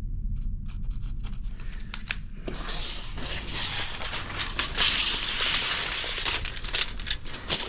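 Dense crackling, crunching noise of material being crushed or torn, starting about two and a half seconds in, over a low steady rumble.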